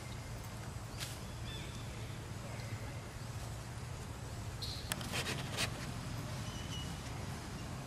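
Outdoor ambience with a steady low hum, a few faint high calls, a click about a second in and a short flurry of clicks and rustles about five seconds in.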